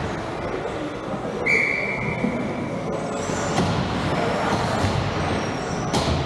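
Ice hockey arena noise with a referee's whistle blown once, a single steady shrill note lasting about a second and a half, then a sharp knock near the end.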